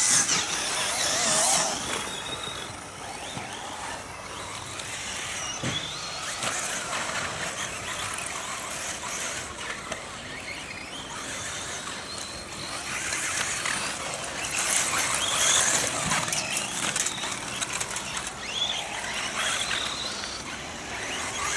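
RC off-road buggy running laps, its motor giving a high-pitched whine that rises and falls as the throttle is opened and closed, louder in stretches as the buggy comes nearer.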